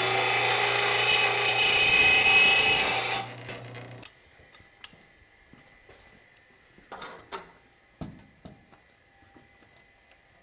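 Stationary disc sander grinding the cut end of a stainless steel exhaust pipe square and flat, loud for about three seconds. Its motor hum then stops about four seconds in. After that there are only a couple of faint knocks.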